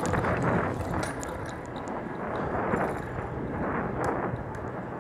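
Wind buffeting a phone microphone while riding a bicycle along a street: an uneven rushing rumble that rises and falls, with a few faint ticks.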